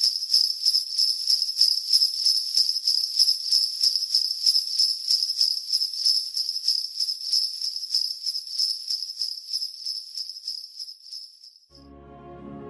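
Sleigh bells shaken in a steady rhythm, about four shakes a second, slowly fading away. In the last second, soft instrumental music with low held notes begins.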